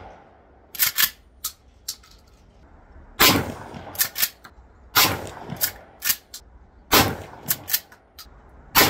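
12-gauge pump-action shotgun firing four shots about two seconds apart. Between the shots come quick double clacks of the pump being worked to chamber the next shell.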